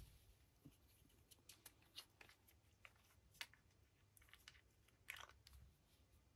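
Near silence, broken by faint, irregularly spaced small clicks and ticks from handling a plastic paint dropper bottle.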